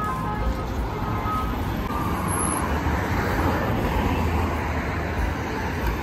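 City street traffic: cars and motorbikes passing on a busy avenue, a steady wash of road noise.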